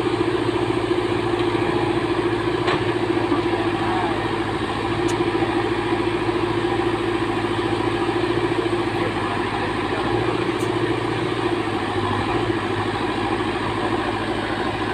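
Diesel engine of a backhoe loader running at a steady speed as it pushes soil with its front bucket, a constant drone that holds its pitch throughout.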